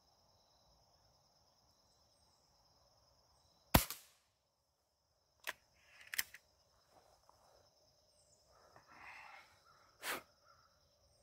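A single sharp crack from a B3-1 underlever spring-piston air rifle firing a .177 pellet about four seconds in. It is followed by metallic clicks and rattles as the rifle is cocked and reloaded, with another sharp clack near the end. A steady high insect chirring runs in the background.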